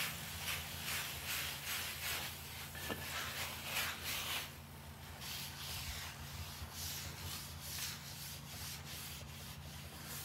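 Wad of paper towel scrubbing water across a warm non-stick ceramic-coated steel griddle top, in back-and-forth strokes about two a second, with a brief pause about four seconds in before softer strokes resume.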